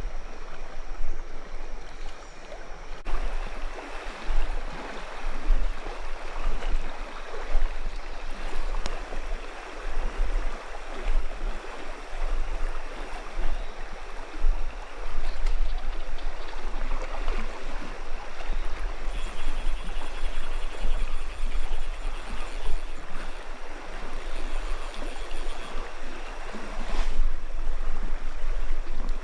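Shallow stream riffle rushing and gurgling over rocks, a steady rush of moving water with a low rumble underneath.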